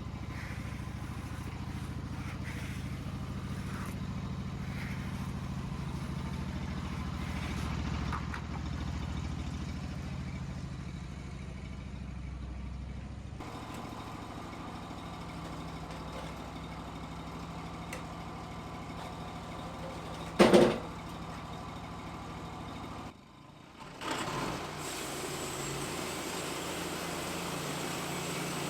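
Small gasoline engine of a portable bandsaw sawmill running steadily; its note changes about halfway through. A single sharp, loud sound stands out about two-thirds of the way in, and the sound dips briefly before a steady hum carries on.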